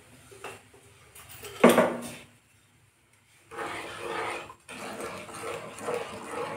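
One short, loud bark-like cry about a second and a half in. From about three and a half seconds on, a wooden spatula stirs palm juice and sugar in a nonstick pan, scraping in repeated strokes.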